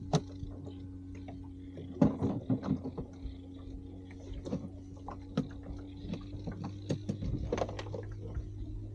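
Outboard motor running with a steady low hum, under scattered clicks and knocks from fishing line and tackle being handled.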